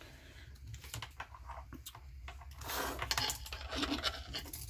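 Irregular small clicks and rattles of cables and plug connectors being handled and unplugged, with a short rustle about three seconds in.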